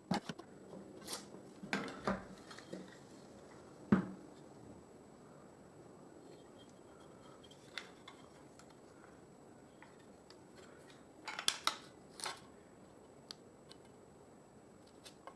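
Scattered light clicks, taps and scrapes of a flat metal tool against the clamps and the plywood-and-aluminium jaw as excess epoxy is spread. A few sharper knocks come in the first few seconds and again near the end, with a quieter stretch between.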